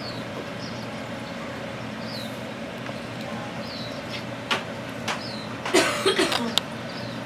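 Steady electric hum of an aquarium air pump driving a sponge filter, with short high falling chirps about once a second. A few sharp clicks come in about four and a half seconds in, and a louder burst of clicks and low sliding sounds near six seconds.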